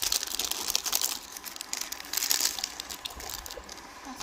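Foil-lined plastic biscuit wrapper crinkling and rustling as hands pull it open and handle it. It is loudest in the first two and a half seconds and quieter after about three seconds.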